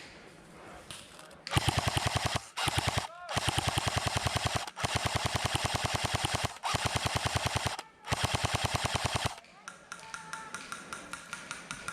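Airsoft gun firing on full auto in a string of long, rapid bursts with short breaks between them. The bursts are loud and close, starting about a second and a half in and stopping about nine seconds in. Fainter clicks follow.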